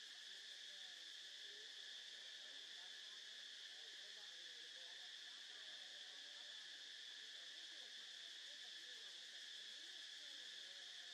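Faint, steady high-pitched insect chorus: a constant drone that does not change.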